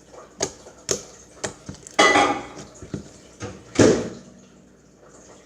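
Kitchen clatter: bowls and utensils knocking and clinking as they are handled on a counter, a string of light knocks with two louder clattering hits, about two seconds in and near four seconds.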